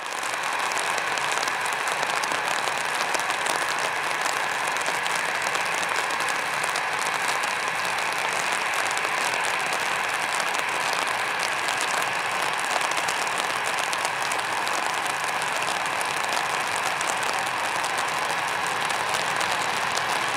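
Rain falling steadily: a dense, even patter of many small drops.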